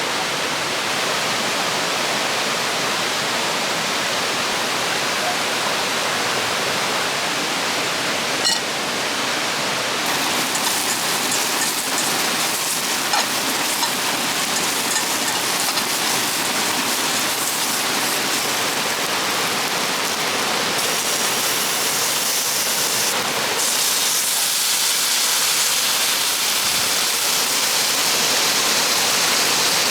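River water rushing steadily over rapids, an even continuous noise, with a few light ticks in the middle.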